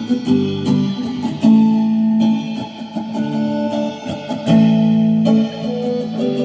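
Guitar played in an improvised jam: plucked chords and single notes in a phrase that repeats about every three seconds, with a longer held chord about a second and a half in and again near the end.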